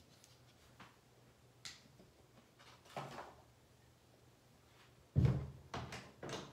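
Handling noises: a few light clicks and knocks, then a louder, low thump about five seconds in, followed by two or three smaller knocks.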